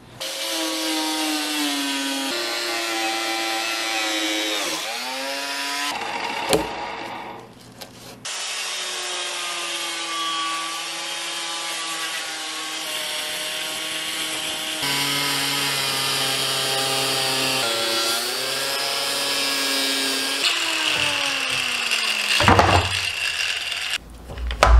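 Angle grinder with a 4-1/2-inch metal cutting wheel running and cutting into 4-inch PVC pipe, its motor whine sagging in pitch as the wheel bites. It stops for about two seconds around six seconds in, runs again, and winds down near the end.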